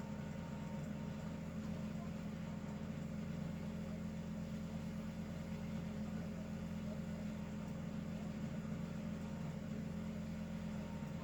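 Steady low mechanical hum with a faint held tone above it, unchanging throughout; no rise and fall of snoring or breathing can be made out.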